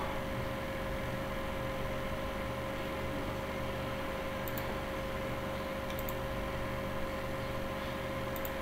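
Steady background hum and hiss with a constant mid-pitched tone running through it, and a few faint, short high clicks.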